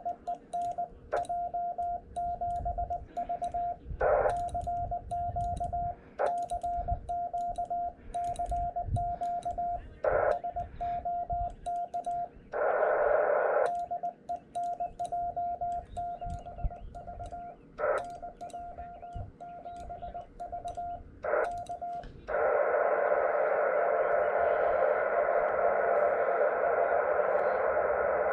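Morse code sidetone from a portable HF transceiver: one steady beep keyed in dots and dashes as the operator sends on an iambic paddle, with faint paddle clicks and short bursts of receiver hiss between words as the rig switches back to receive. About 22 seconds in the sending stops and steady band noise from the receiver takes over while he listens for a reply.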